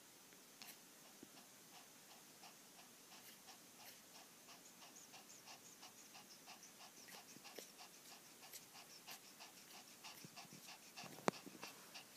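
Sleeping newborn puppy making faint, quick little whimpering sounds and breaths, a few a second, as it twitches in a dream. A single sharp click comes near the end.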